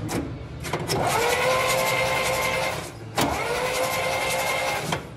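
Starter motor of a 1949 Dodge tow truck cranking the engine in two bursts of about two seconds each, each a whine that rises and then holds steady. A few sharp clicks come just before the first burst.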